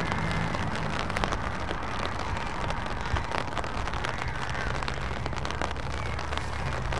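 Low, steady hum of heavy trucks' diesel engines moving slowly, a Scania R450 tractor unit in front, with tyre noise and many small ticks of rain pattering.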